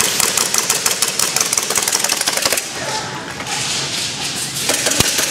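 Airsoft gun firing full-auto: two long runs of rapid sharp clicks, the first over the opening two and a half seconds, the second starting near the end.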